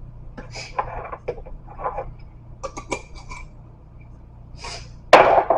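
Small plastic clicks and scrapes from a spice jar's shaker top being pried off and handled. A louder, rougher noise comes near the end.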